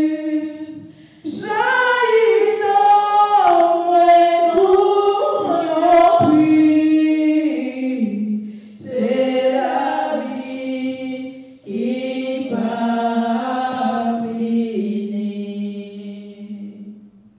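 A woman singing a hymn solo and unaccompanied into a handheld microphone, in long phrases with short breaks between them. She ends on a long held low note that fades away near the end.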